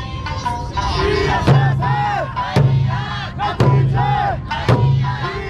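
Eisa drumming: large ōdaiko barrel drums struck together in a steady beat about once a second, with performers' shouted calls between the beats over the accompanying music.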